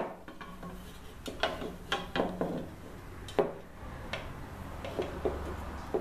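Soft annealed 1/4-inch copper tubing clinking and scraping against a propane bottle as it is wound around it into a coil: a series of irregular light knocks and rubs.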